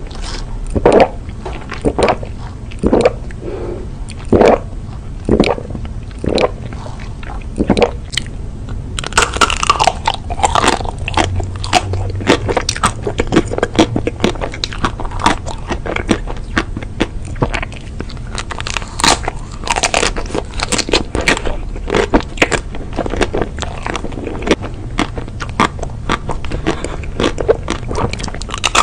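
Close-miked eating mouth sounds. For the first eight seconds or so there is a sharp swallow about once a second while drinking chocolate milk through a straw. After that come bites into chocolate-coated ice cream bars, with the thin chocolate shell crackling and wet chewing.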